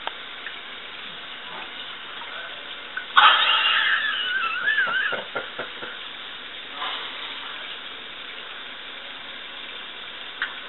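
Steady running noise from the vintage Conover dishwasher. About three seconds in comes a loud sudden clatter of crockery with a wavering ring lasting a couple of seconds, then a few sharp knocks.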